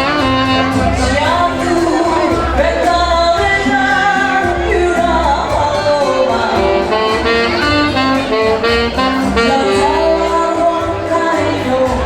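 Band music with a wavering lead melody over a steadily pulsing bass beat.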